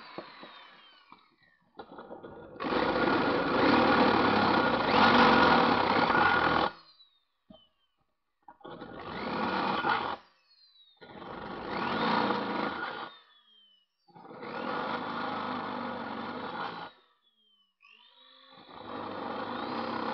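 Drill press motor run in five bursts, each starting with a rising whine and winding down at the end, as a 10 mm bit opens up the 6 mm pilot holes in a thin tin coffee can. The first burst is the longest and loudest.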